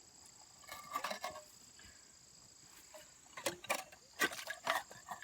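Steady high drone of insects, with scattered clicks and knocks about a second in and a denser run of them in the last two seconds.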